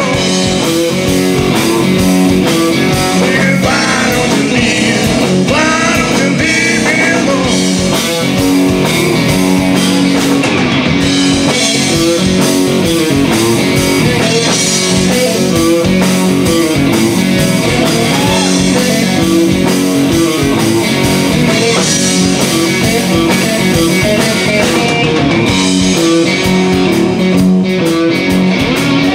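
Live blues-rock band playing: a Telecaster-style electric guitar leading over electric bass and drums, amplified and steady.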